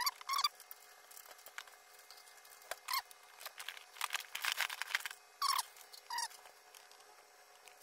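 Short squeaks and clicks of plastic computer parts being handled and pressed together, as a RAM module is pushed into its motherboard slot. A dense run of clicking falls about four to five seconds in.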